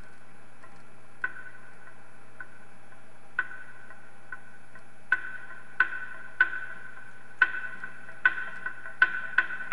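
Knocking percussion at the start of a music track: sharp knocks, each ringing briefly in a clear tone over a faint steady hum. A few scattered knocks come first, then about one to two a second from about halfway.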